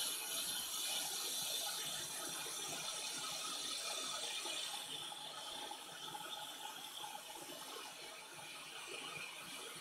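Hot air rework station blowing a steady hiss of hot air onto a circuit board, preheating it for soldering. The hiss softens a little about halfway through.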